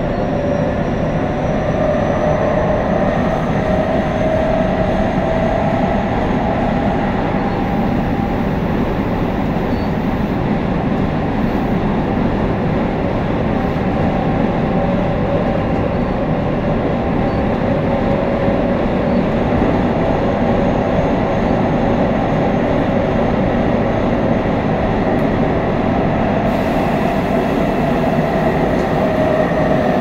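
Running sound of Tobu train 9152, a set with GTO-thyristor VVVF drive, heard from inside the car underground: a steady rumble of wheels on rail with faint wavering pitched tones above it.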